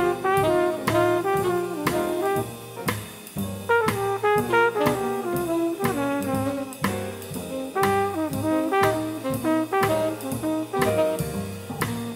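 Jazz combo playing swing: a trumpet plays the melody line over piano, a steady bass line and drum kit with cymbals.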